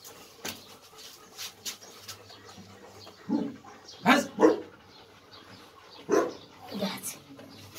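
A dog barking: five short barks from about three seconds in, two of them close together, after a few faint knocks and rustles.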